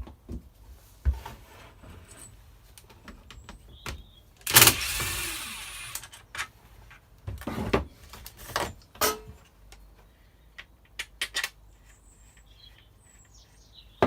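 Scattered clicks and knocks of a tool and hard plastic parts as a clip is worked loose on a Stihl FS240 brush cutter's housing. About four and a half seconds in there is a loud rushing burst of noise that fades over a second or so.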